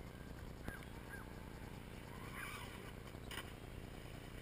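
Steady low outdoor background rumble, with a few short calls from distant birds. A sharp click comes just before one second in, and a brief burst of noise about three seconds in.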